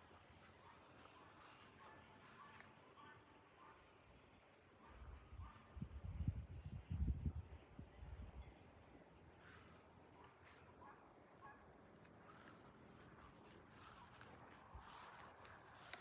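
Faint, steady high-pitched trilling of insects in summer vegetation, with a few low thuds and rumbles between about five and eight seconds in.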